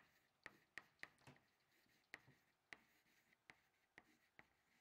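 Chalk on a chalkboard while words are written: faint, short, irregular taps and scratches, about a dozen in all.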